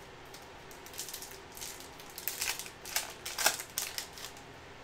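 Trading cards being flicked through by hand: a run of quick, dry clicks and snaps of card against card, busiest between about two and four seconds in and loudest near three and a half seconds.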